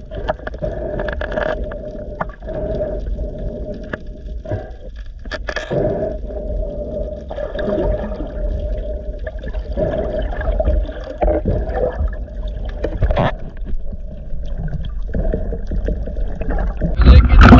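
Sea water gurgling and sloshing around the camera during a snorkel dive, a continuous uneven wash with scattered short knocks and clicks.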